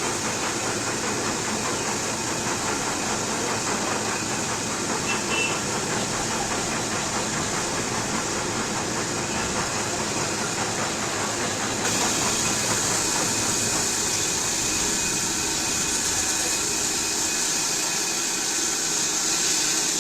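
Brake lathe resurfacing a car's disc brake rotor: the machine runs steadily while the cutting tool skims the rotor face, with a high hiss that grows louder about twelve seconds in.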